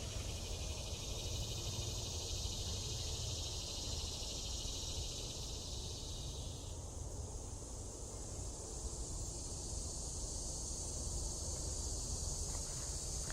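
Late-summer insect chorus of crickets and similar insects, a steady high shrill trilling. About halfway through the lower part of the chorus drops out, leaving a thinner, higher buzz, over a steady low rumble.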